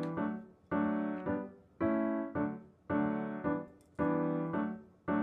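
Background piano music: a chord struck about once a second, each followed about half a second later by a shorter second chord.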